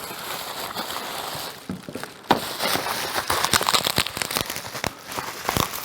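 Plastic packaging crinkling and rustling, with irregular clicks and knocks of parts being handled while a cordless grass trimmer is unpacked.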